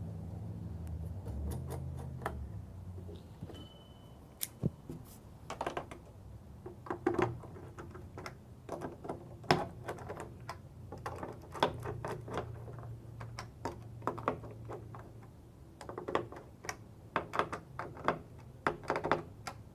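Irregular sharp clicks and small metal taps as door-handle and lock hardware and its nuts and screws are handled and fitted, over a low hum.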